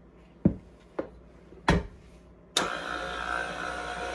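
Three knocks as the KitchenAid Ultra Power stand mixer's tilt head is lowered, then about two and a half seconds in its motor switches on and runs steadily, turning the dough hook through the bread dough.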